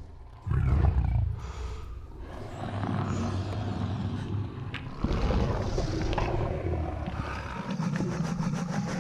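Growls of the Indominus rex, the film's genetically engineered dinosaur, coming in several low-pitched stretches.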